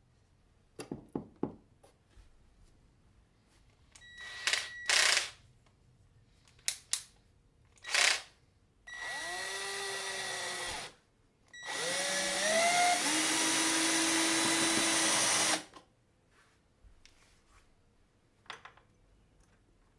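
Cordless screwdriver driving screws into a wooden board: a few light clicks and short trigger blips, then two longer runs of about two and four seconds, the motor pitch rising as it spins up and then holding steady.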